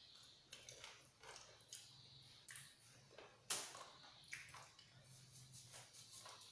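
Faint eating sounds: chewing and mouth noises while eating fried chicken, a string of short clicks and smacks, with one louder, sharp sound about three and a half seconds in.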